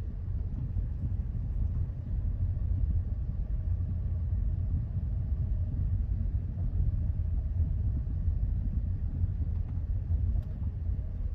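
Steady low road rumble from a Hyundai Elantra CN7 being driven.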